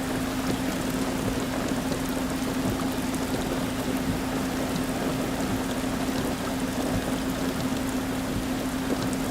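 Heavy rain with water running and pouring, a steady hiss that does not let up, over a steady low hum.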